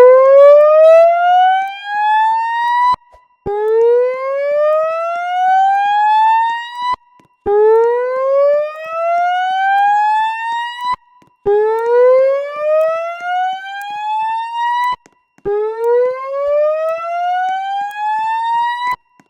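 Notifier voice-evacuation fire alarm speaker sounding the slow-whoop evacuation tone: five loud rising sweeps, each climbing for about three and a half seconds, with short gaps between.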